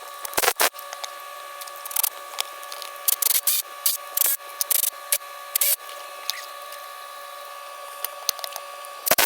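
Wrench snugging up the exhaust manifold nuts on a Detroit 6V92 diesel: irregular short metallic clicks and scrapes in bursts, busiest a few seconds in, over a steady hum.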